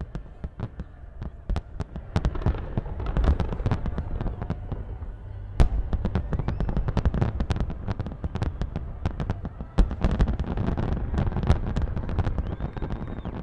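Fireworks display: a dense run of bangs and crackles over a continuous low rumble, growing busier about two seconds in, with two especially sharp, loud reports about six and ten seconds in.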